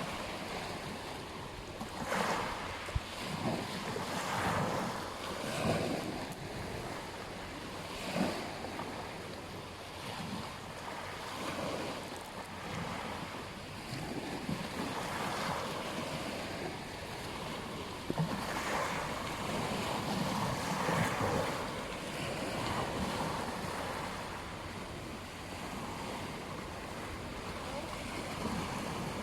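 Ocean waves breaking and washing on a beach: continuous surf rising and falling in swells every couple of seconds.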